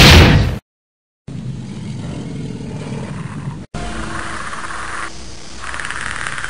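Predator creature sound effect: a loud roar that cuts off about half a second in. After a short silence comes a steady, quieter low rumble, broken off once for an instant near the middle.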